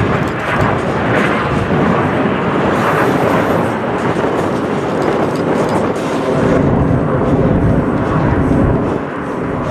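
Steady jet noise from a formation of Alpha Jet trainers flying overhead, a dense rush without distinct tones that holds level throughout.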